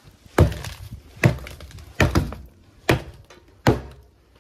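Hammer blows knocking away rubble at the foot of a door opening. There are about six sharp strikes at an uneven pace, roughly one every three-quarters of a second, including a quick double strike about two seconds in.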